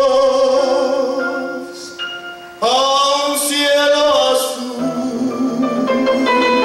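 A male vocalist sings long held notes with vibrato over a live Andean–mariachi fusion band. About two and a half seconds in the voice fades briefly, then comes back strongly on a new held note.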